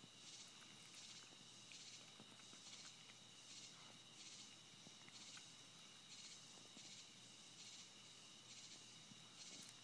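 Faint insect chorus: a high chirp pulsing about twice a second over two steady high-pitched tones, with a few faint scattered ticks and rustles.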